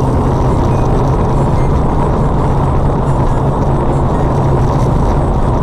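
Steady road and engine noise of a car driving at highway speed, heard from inside its cabin, with a constant low drone underneath.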